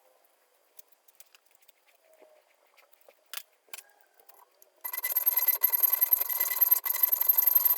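A few faint clicks and taps, then about five seconds in a high-speed power grinder starts up loud. It runs with a steady high-pitched whine over a grinding hiss, cut off briefly once.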